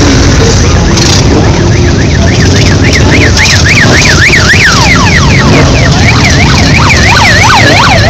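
A dense parade of Harley-Davidson V-twin motorcycles rumbling steadily as they pass. Over it a fast up-and-down yelping siren starts about a second and a half in, and a second, lower-pitched one joins about five seconds in.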